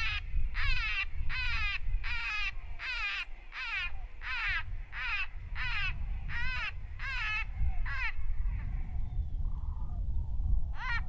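A rapid string of crow-like cawing calls, about two a second, each one falling in pitch. They break off about three seconds before the end and start again right at the end, over a steady low rumble.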